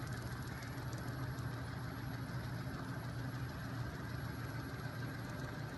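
Homemade magnet-coupled flywheel machine, driven by a small 12-volt electric motor, running at steady speed with a constant low hum and whir.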